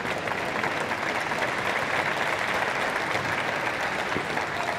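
Arena crowd applauding steadily, a dense patter of many hands clapping.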